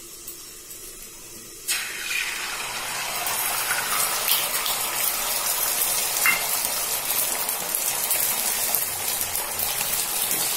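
Beaten egg hitting a hot oiled pan: sizzling starts suddenly a little under two seconds in, then runs steadily as the omelette fries.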